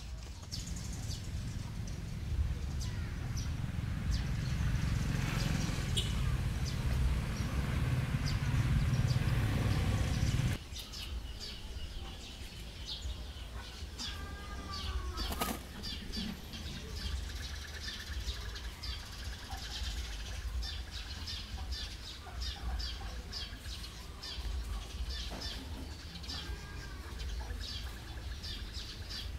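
Outdoor ambience of small birds chirping over and over. A low rumble fills the first ten seconds or so, then cuts off abruptly.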